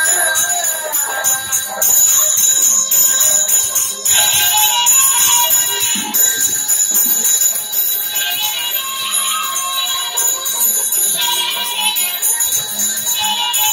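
Brass puja hand bell rung continuously in a fast, steady jangle, with music carrying a wavering melody alongside it.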